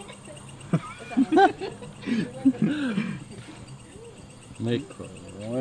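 Several people talking indistinctly and chuckling, with crickets chirping steadily in the background.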